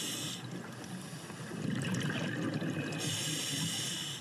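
Scuba diver breathing through a regulator underwater: a hissing inhale, then a burble of exhaled bubbles, then another hissing inhale about three seconds in.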